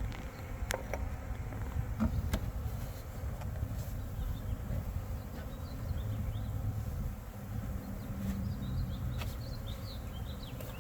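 Honey bees buzzing around an opened hive, a steady low hum, with a few sharp clicks.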